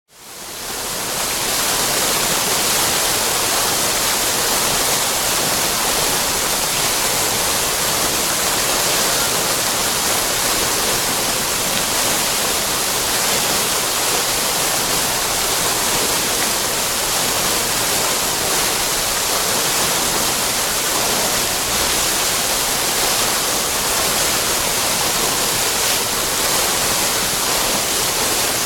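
Water fountain splashing: a steady, even rush of falling water, fading in over the first second.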